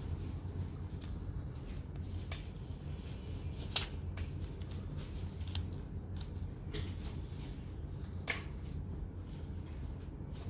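Scattered light clicks and taps from a smartphone and its silicone case being handled, over a steady low hum.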